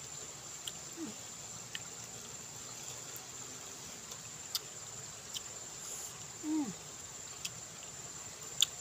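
Faint, steady high-pitched insect trilling, typical of field crickets, with scattered small clicks of chewing and mouth sounds from eating by hand. Two short low falling hums, about a second in and past the middle.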